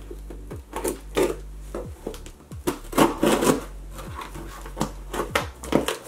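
Scissors slitting the packing tape on a cardboard shipping box, then hands tearing at the tape and cardboard flaps: irregular scraping and crackling strokes, busiest around the middle.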